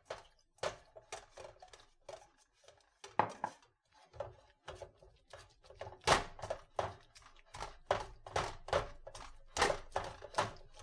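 Wire potato masher mashing boiled potatoes in a stainless steel bowl, its metal knocking against the bowl in a string of short, irregular thunks that come faster and louder from about halfway through.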